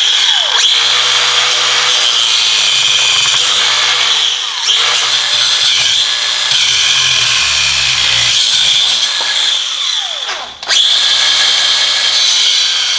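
Cordless angle grinder with a cutoff wheel running at speed, cutting through the steel leaf spring pack retainer clips with a steady high whine. The sound dips briefly about four and a half seconds in. About ten and a half seconds in it drops away and picks straight back up.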